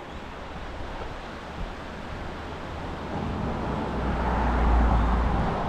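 A road vehicle passing by: a rushing noise of tyres and engine that swells to its loudest about four to five seconds in, then begins to fade.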